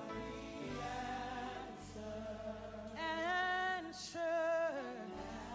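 Gospel worship singing: voices holding long notes with vibrato over a steady low accompaniment, with the strongest held phrases a little past halfway.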